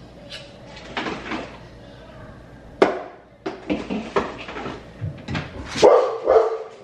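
Kitchen handling noises: a sharp knock about three seconds in, like a cupboard door shutting or a dish set down, then a quick run of knocks and clatter.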